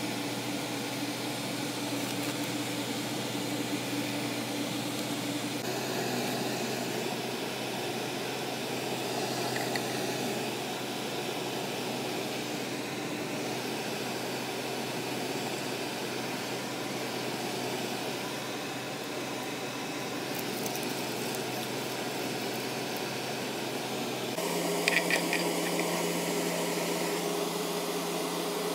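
Steady mechanical hum with a noisy hiss, as from a running fan or appliance. About four-fifths of the way through it abruptly changes to a different steady pitch, followed by a few light clicks.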